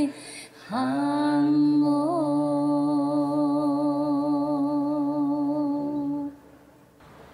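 A single unaccompanied voice singing one long held note of a Hakka mountain song. The note starts about a second in, wavers briefly, holds steady and stops about a second before the end.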